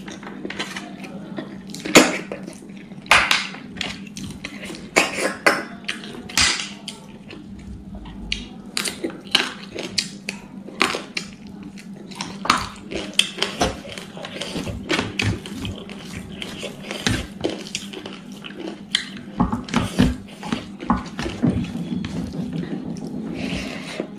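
Close-up eating sounds: snail shells and fingers clicking and clinking irregularly against a steel plate while rice is mixed by hand, with chewing, over a steady low hum.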